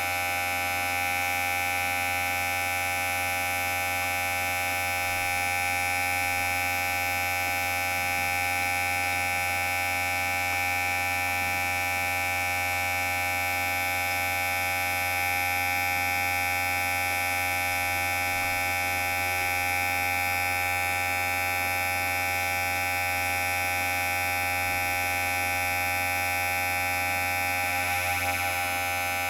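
Electric hair clipper running with a steady, even buzz.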